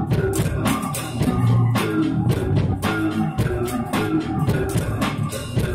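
Electric bass guitar played through a DigiTech GNX multi-effects processor: a funky bass line over a steady drum beat.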